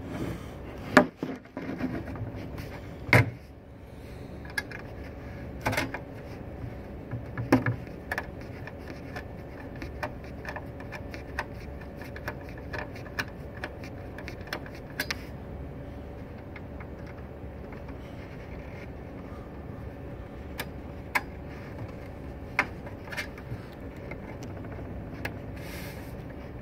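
Screws being taken out of the metal case of a network video recorder with a screwdriver: scattered clicks and knocks of tool and metal, a few louder ones in the first several seconds and lighter ticks after, over a steady low hum.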